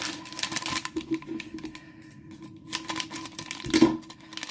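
Crinkling and crackling of a Lego minifigure blind bag being handled and opened, with a louder crackle near the end.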